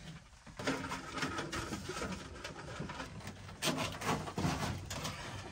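Rustling and scraping as cables and insulation are pulled and handled through the bare sheet-metal channels of a van body, in irregular scuffs starting about half a second in, louder a little before four seconds.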